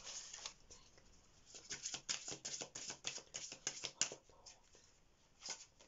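A deck of oracle message cards being shuffled by hand: a quick run of soft card flicks that thins out about four seconds in, with a short flurry near the end.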